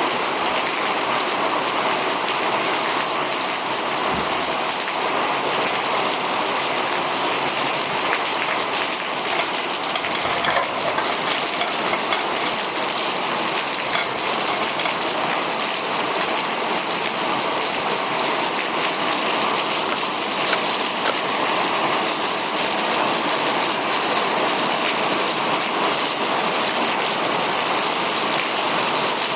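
Torrential rain falling steadily: a dense, even hiss of rain with no let-up.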